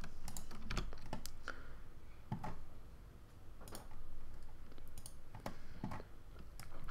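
Computer keyboard keys and mouse buttons clicked while working in Blender: separate single taps, irregularly spaced, with short pauses between.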